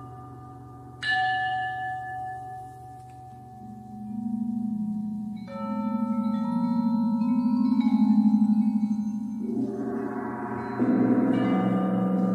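Intro music: a struck bell tone rings out and fades about a second in over a low steady drone, then sustained chords swell and shift, with new bell-like tones entering around the middle and again near the end.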